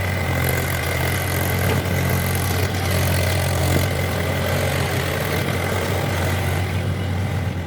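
Diesel engine of heavy earth-moving or farm machinery running steadily at idle, a constant low hum with a thin steady whine above it.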